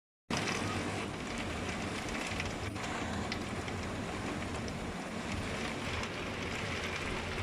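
Steady rain falling from a typhoon, a constant hiss with scattered drop ticks, cutting in abruptly just after the start.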